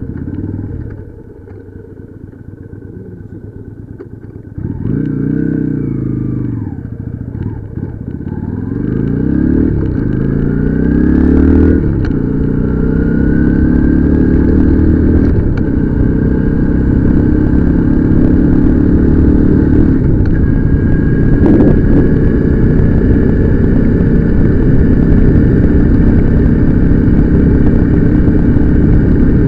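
Motorcycle engine pulling away and accelerating. The pitch climbs and drops back at each upshift over the first half, then holds steady at a cruise.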